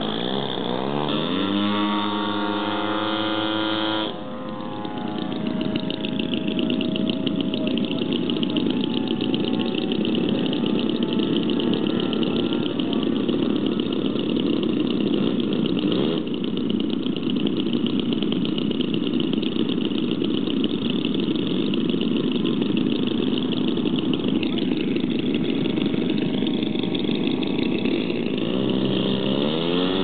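Engines of giant-scale radio-controlled model airplanes running at high power. The pitch slides up during a low pass early on, then runs steady. Near the end it rises again as a model takes off down the runway.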